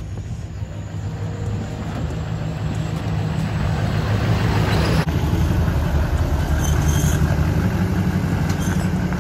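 LLY Duramax V8 turbo-diesel pickup running with a deep, steady rumble that grows louder as the truck approaches. About five seconds in the sound changes abruptly, and diesel truck engines carry on idling.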